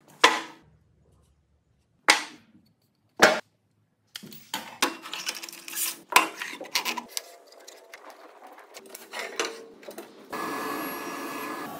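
Three sharp wooden knocks, then irregular clatter and knocking as the sliding table, fence and wood pieces of a sliding-table saw are handled. About ten seconds in, a woodworking machine is switched on and runs with a steady hum.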